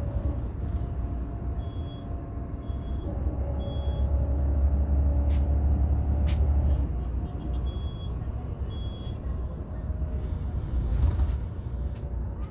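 Engine and road noise heard from inside a moving vehicle: a steady low rumble that swells and eases, with short high beeps, three in a row and later two more, and a couple of sharp clicks.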